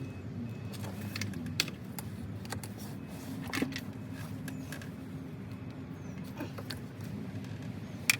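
Scattered sharp metallic clicks and clinks of hand tools and loose metal parts being handled, over a steady low hum, with one louder clink that rings briefly near the end.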